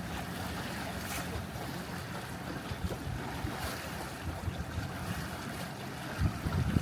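Wind buffeting the microphone over a steady wash of water along a small sailboat's hull while under sail, with heavier low rumbling gusts near the end.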